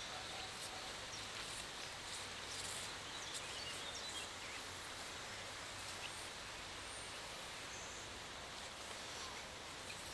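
Quiet outdoor garden ambience: a steady low hiss of background noise with a few faint, short bird chirps scattered through it.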